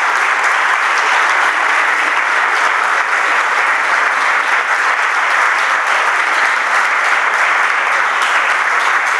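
Loud, steady applause from an audience in a hall.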